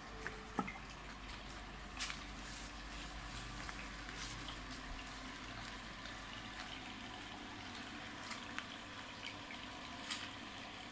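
Steady background hiss with a low hum underneath, with a few sharp clicks, the loudest about half a second and two seconds in.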